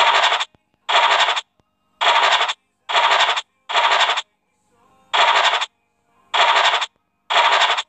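Online scratch-card game's scratching sound effect: eight short scratchy rasps of about half a second each, one for each square uncovered, with a slightly longer pause a little past halfway.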